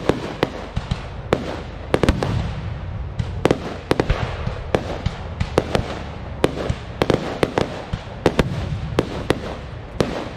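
Aerial fireworks going off in quick succession: many sharp bangs, two or three a second at uneven intervals, over a steady low rumble.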